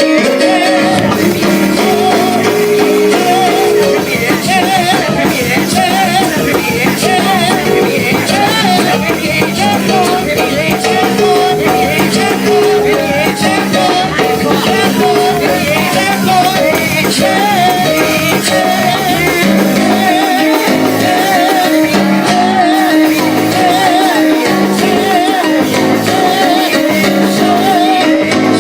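Lively church praise music, played steadily by a band with guitar, with singing over it.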